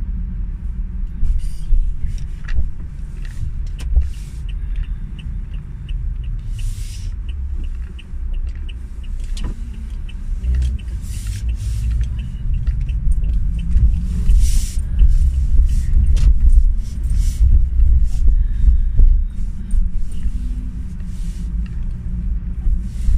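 Road noise and engine rumble inside a moving car's cabin, with scattered knocks and rattles. A light regular ticking, a few times a second, runs for several seconds in the middle.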